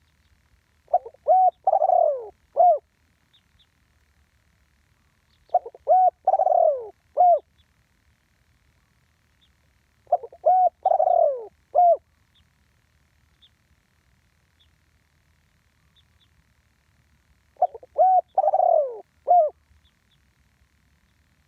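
Spotted dove cooing: four phrases about four to seven seconds apart, each a couple of short coos, a longer falling coo, and a short closing note.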